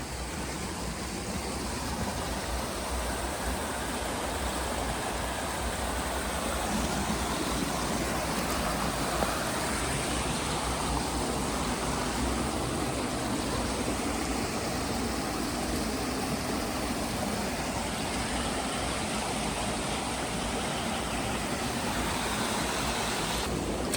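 Fast-flowing river water rushing steadily, an even unbroken roar of water.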